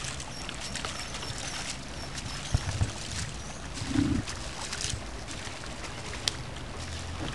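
Outdoor ambience at a lake: a steady rushing hiss, broken by a few low thumps about two and a half seconds in and a louder one about four seconds in.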